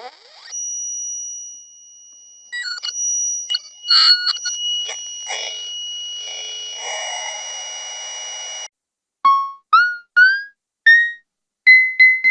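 Homemade percussion synthesizer circuit making electronic sounds: a steady high two-note whine with clicks and noisy hits over it, cutting off suddenly about nine seconds in, then six short beeps that each swoop up in pitch, each a step higher than the last.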